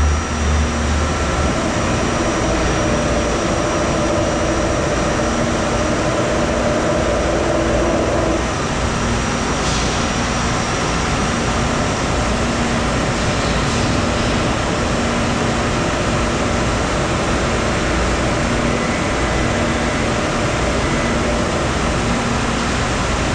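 Machine-shop floor with CNC lathes and other machines running: a steady mechanical hum and hiss with several held tones. A low tone pulses on and off, and a higher tone stops about eight seconds in.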